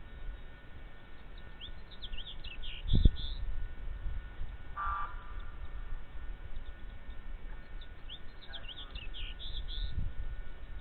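Bald eagle giving its high chattering call twice: a quick run of piping notes each time, with a low thump just after the first call.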